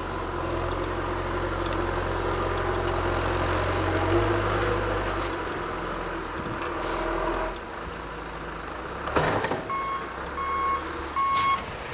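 A truck engine running and manoeuvring, with a sharp thud about nine seconds in that sounds like a parked car being struck. A reversing beeper starts sounding repeatedly about a second later.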